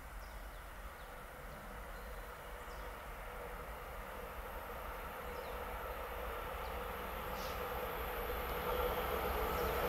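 Bombardier Talent 2 (class 442) electric multiple unit approaching along the track from a distance, its rolling noise and rail hum growing steadily louder.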